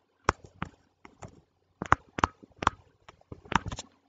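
Stylus tapping on a tablet screen while writing a word by hand: a string of short, sharp, irregularly spaced clicks.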